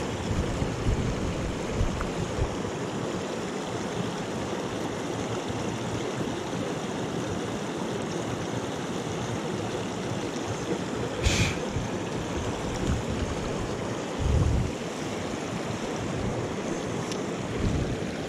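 Small moorland stream rushing and splashing steadily over rocks. There is a short sharp click about eleven seconds in, and a dull low bump a few seconds later.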